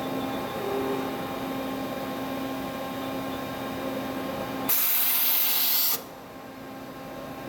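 Wada Machinery WHN-400NCR NC double-head milling machine running with a steady hum of several fixed tones. Just under five seconds in, a loud hiss starts and lasts just over a second before cutting off sharply.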